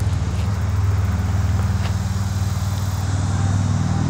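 A steady low machine hum, like a motor running, holding an even pitch, with a few faint clicks over it.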